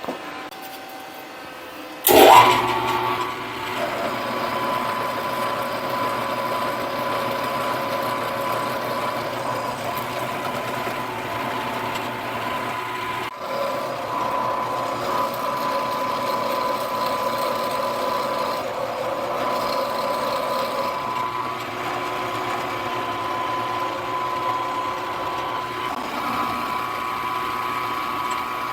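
Milling machine cutting with a half-inch five-flute solid carbide finishing end mill, taking the profile of a stop collar on a rotary table. It starts suddenly and loudly about two seconds in, then runs steadily with a constant high tone.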